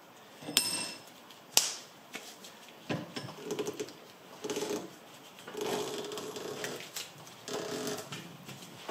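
Bench vise being wound in to press the rubber bushing out of an engine mount with a socket: two sharp metal clicks, then short creaking bursts about once a second as the bushing is forced out.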